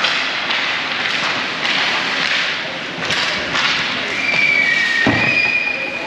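Sounds of a youth game in play: scattered thuds and knocks over a steady din, then a whistle held for about two seconds starting about four seconds in.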